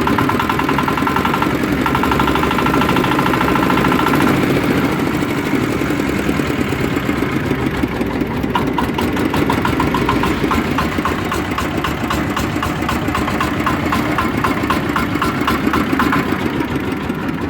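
Dongfeng 8 hp single-cylinder diesel stationary engine running steadily, a fast even beat, with a high whine that comes and goes.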